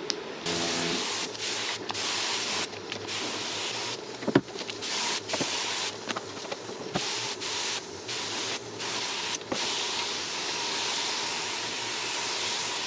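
Gravity-feed air spray gun hissing as it sprays white colour coat onto a masked truck roof. At first it comes in short bursts as the trigger is pulled and released, then it runs as one steady hiss from about ten seconds in. There is a sharp click about four and a half seconds in.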